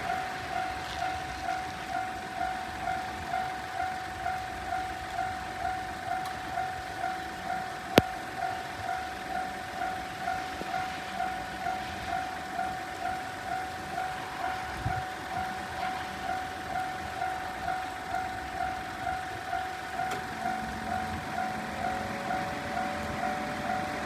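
Electronic railway level-crossing alarm ringing steadily, the repeating two-tone 'kan-kan' of a Japanese crossing at about two strikes a second, of the Tohoku or Tokai tone type. A single sharp click about eight seconds in.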